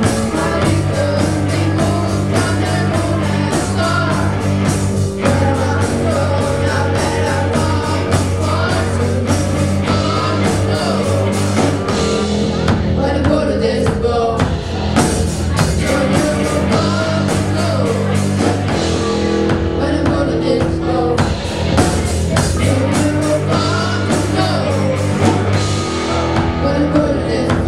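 Student rock band playing live: electric guitars and drum kit with sung vocals.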